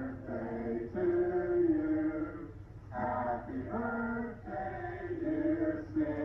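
Several people singing a song together in long held notes, phrase by phrase, with short breaks between the phrases.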